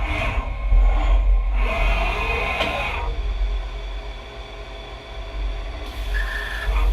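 Hurco BMC 2416 CNC machining center face-milling a steel slab through its mill scale: a heavy low rumble with cutting noise, louder in the first few seconds, and a brief steady whine about two seconds in.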